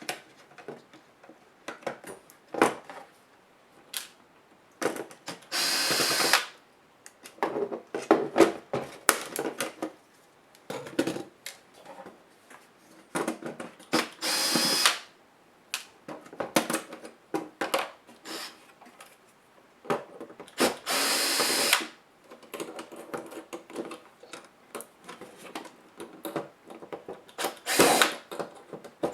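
Small electric screwdriver whirring in runs of about a second, three times, backing screws out of a laptop case, with clicks and clatter of screws and plastic parts being handled between the runs.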